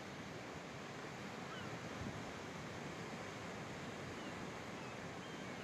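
Steady hiss of sea surf breaking below a cliff, with a few faint, short high chirps from birds.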